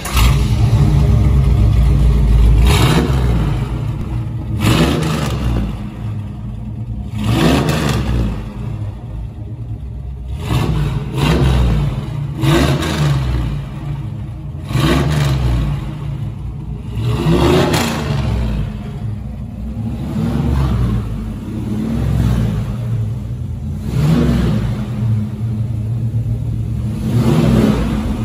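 1972 Camaro Z28's V8 firing up through a Black Widow 6-inch dual exhaust, then blipped repeatedly. About ten loud revs rise and fall every two to three seconds over a rumbling idle.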